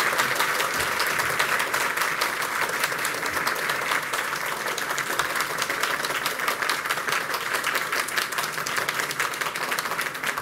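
A large crowd applauding: a dense, steady patter of many hands clapping, tapering slightly toward the end.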